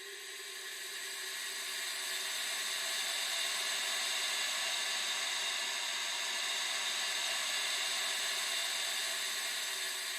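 Howling wind sound effect: a dense, hissing rush of wind that swells over the first few seconds, holds, and eases slightly near the end.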